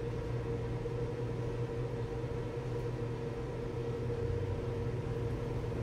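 Microwave oven running with a steady hum while it heats a bowl of sauce.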